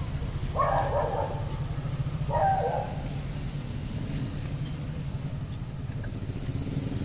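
A steady low engine hum with a fine, rapid pulse, with two brief faint noises about half a second and two and a half seconds in.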